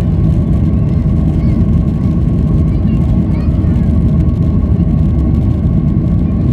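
Boeing 737-800's CFM56-7B turbofan engines at take-off thrust heard from inside the cabin: a loud, steady, deep rumble with a steady whine running through it.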